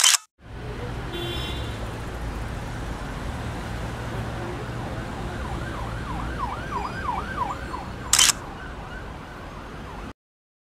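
Steady low traffic rumble with an emergency vehicle's siren faintly wailing up and down quickly for a couple of seconds in the middle; a short loud burst of noise comes about eight seconds in, and the sound cuts off suddenly near the end.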